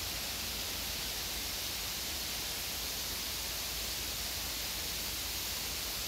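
Steady, even hiss of outdoor summer ambience, with no distinct sound standing out.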